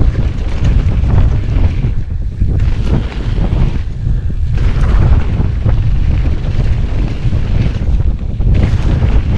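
Heavy wind buffeting on an action camera's microphone during a fast mountain bike descent, a dense low rumble with tyre noise and frequent knocks and rattles from the bike over the dirt trail.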